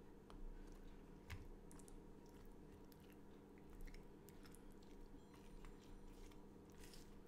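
Faint sounds of a metal spoon spreading tomato pizza sauce over crispy fried-chicken breading: soft crunches, squishes and light clicks of the spoon on the crust, over a low steady hum.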